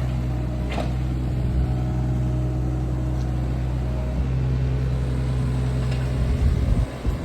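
An engine running steadily at a constant speed with a low hum, with a few faint clicks, dropping off sharply near the end.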